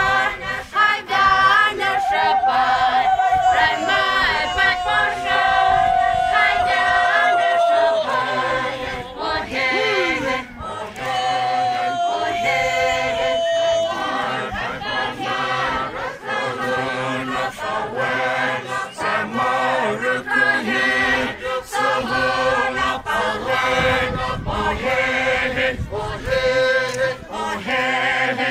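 A group of dancers singing and chanting together in a folk performance, with a regular beat of sharp knocks running through it. In the first half, a long, wavering high call is held twice, sagging slowly before it drops away.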